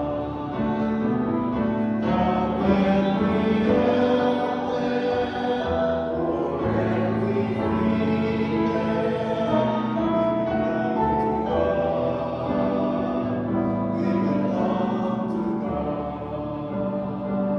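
A choir singing a slow hymn in sustained, held chords that change every second or two.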